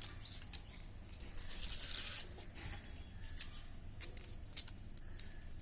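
Decorative-edge craft scissors being worked: a faint rasp of cutting about two seconds in, then scattered small clicks of the blades.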